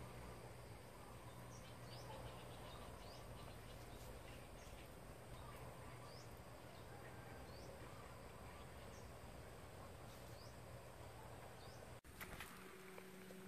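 Quiet outdoor ambience: a faint steady hiss with small high rising chirps about once a second. About a second and a half before the end it cuts off abruptly and gives way to a low steady hum.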